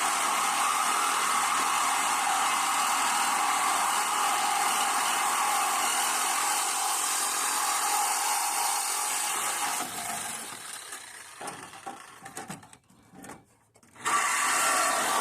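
Old corded electric saw running as it cuts into the F-350's metal. It runs steadily for about ten seconds, then sputters on and off and stops briefly before starting again near the end.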